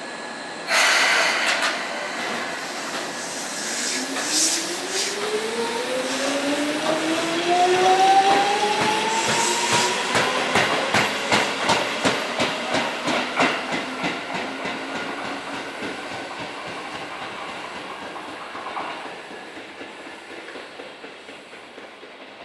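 Seibu New 2000 series electric train pulling away: a sudden hiss about a second in, then the chopper control's whine rising steadily in pitch as the train accelerates, joined by a regular thumping from a flat spot on a wheel. The sound fades as the train moves off.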